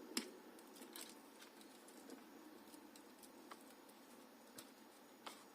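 Near silence with a few faint, scattered clicks and taps, the small handling noises of wires and tools being worked while soldering wires to a resistor.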